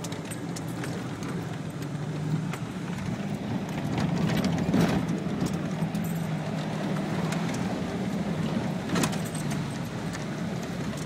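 Jeep Wrangler engine pulling steadily under throttle, heard from inside the cab as it drives through a mud puddle, getting louder about four seconds in. Mud and water splash and slap against the body and windshield in scattered knocks, the strongest near the end.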